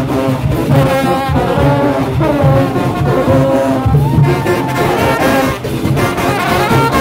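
A marching band's brass section, with sousaphones, trumpets and baritone horns, playing a loud tune up close over a steady low beat.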